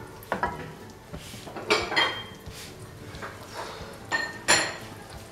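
A serving ladle knocking and scraping against a metal cooking pot as food is ladled out: several separate clinks, each with a short metallic ring, the loudest about four and a half seconds in.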